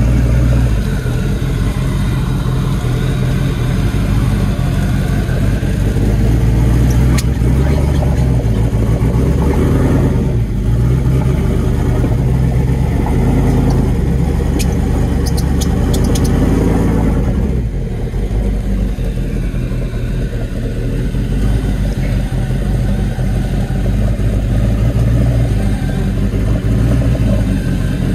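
Lifted Toyota 4Runner's engine working hard under load, revving up and easing off in turn as it crawls. A few sharp clicks come about halfway through.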